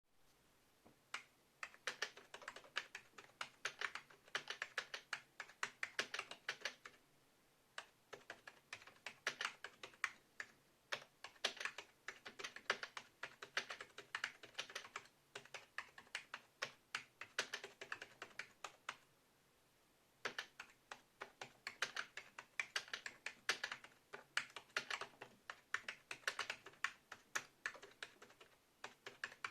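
Typing on a Hewlett-Packard E06333 keyboard: quick runs of key clicks, broken by two short pauses, one about seven seconds in and one a little before twenty seconds.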